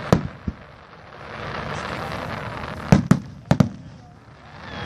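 Aerial fireworks shells bursting: a sharp bang at the start and a fainter one half a second later, then two quick pairs of bangs around three and three and a half seconds in, with a hiss that swells and fades between them.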